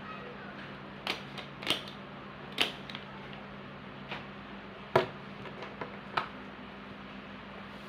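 Irregular sharp clicks and clacks of small hard objects being handled while bird leg rings are packed, five or six in all, the loudest about five seconds in, over a steady low hum.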